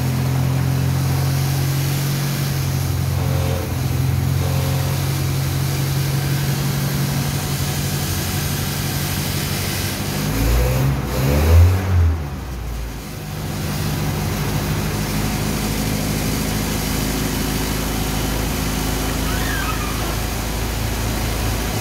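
GAZ-20 Pobeda's side-valve four-cylinder engine running steadily, freshly started after ten years of standing. About halfway through the revs rise briefly and fall, then it settles back to a steady idle.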